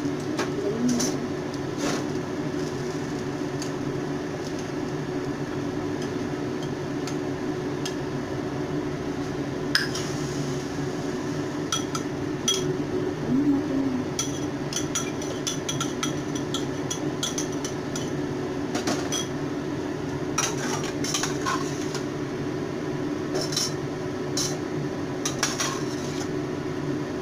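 Metal spoon and spatula clinking and scraping against a frying pan and a small bowl, with scattered sharp clinks over a steady hum and hiss.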